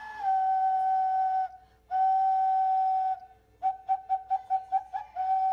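Handmade ceramic whistle (a clay ocarina) being blown. It plays long clear notes that step between two pitches, then a quick run of short toots, about six a second, and then a held note again.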